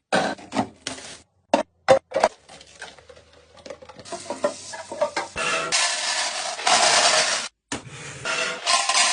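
Groceries being handled and put away: short knocks and clatter of containers set down, then a few seconds of crinkly rustling, like plastic bags or packaging, from about four seconds in. The sound cuts out abruptly several times.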